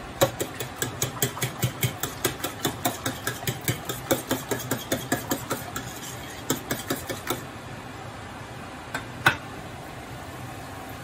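Fork whisking eggs in a ceramic bowl, tapping against the bowl about four or five times a second for some six seconds, then a short second run of strokes. One sharper clink comes near the end, over a steady low hum.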